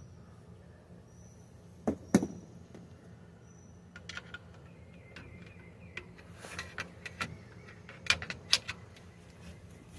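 Sharp metal knocks and clanks of tools working a differential carrier loose from its rear axle housing: two loud knocks about two seconds in, then a scatter of lighter taps and clinks.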